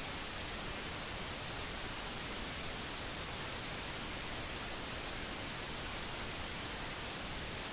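Steady, even hiss like static, with no distinct sounds in it.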